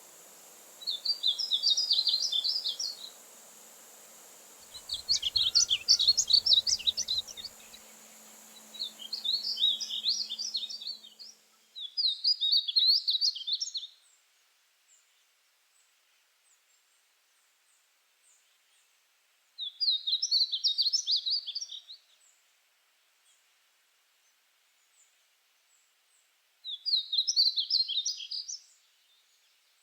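Painted bunting singing: six quick, warbled song phrases of about two seconds each, separated by pauses of one to six seconds. A steady hiss lies under the first three songs and ends near the middle.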